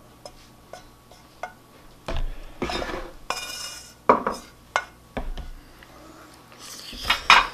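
Fried rice being scraped from a frying pan into a ceramic bowl: chopsticks scrape and click against the pan, and the pan knocks against the bowl's rim. There are scattered clicks and a brief ringing clink about three seconds in.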